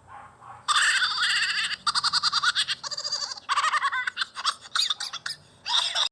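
High-pitched laughing sound effect: a fast, cackling run of laugh pulses that starts just under a second in and cuts off abruptly near the end.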